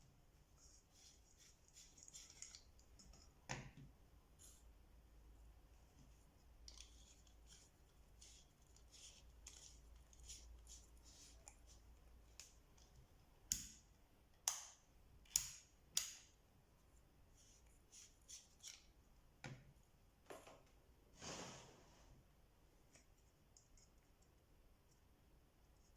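Small clicks, taps and scratches from hands handling small parts. Four sharp clicks come close together about halfway through, and a few more knocks and a scrape follow.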